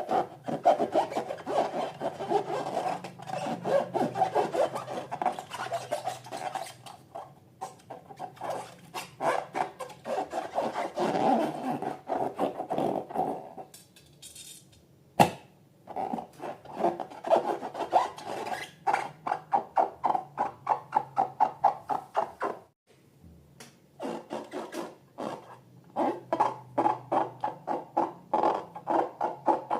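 Slime and balloons worked by hand in quick rhythmic strokes, rubbing and squishing, with short pauses and one sharp click partway through.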